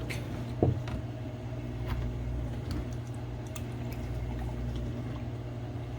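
Milk being poured into a milk frother jug up to its lower fill mark, over a steady low hum, with a short knock about half a second in.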